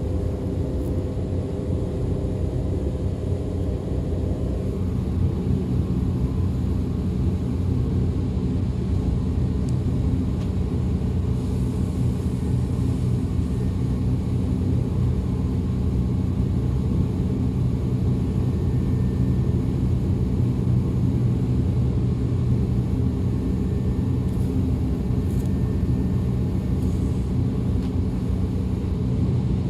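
DB Class 425 electric multiple unit heard on board while running: a steady rumble of wheels on track with the hum of its electric traction drive, whose higher hum tones fade about four seconds in.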